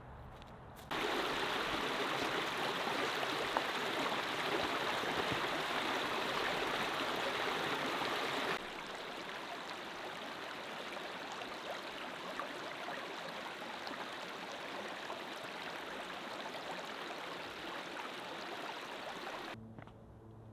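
Running stream water, a steady rushing noise that starts suddenly about a second in. About halfway through it drops abruptly to a quieter, even water sound, and it cuts off just before the end.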